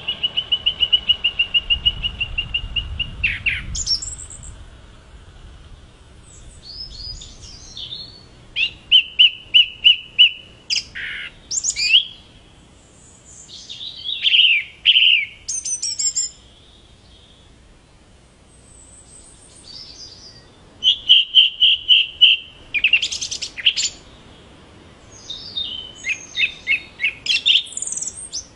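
Song thrush singing: a series of loud phrases with pauses between them. Some phrases are a rapid run of one short note repeated many times, others a mix of clear whistles and squeaky notes.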